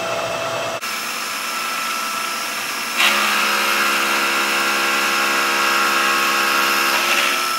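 Milling machine spindle driving a face mill through aluminum plate: a steady machining whir with a whine. About three seconds in it turns louder and fuller as the cutter bites further into the plate. The spindle motor is working at about its full load.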